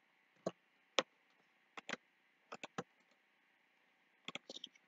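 Faint, scattered clicks of a computer mouse and keyboard: about a dozen sharp single clicks, some in quick pairs, with a quick run of clicks near the end.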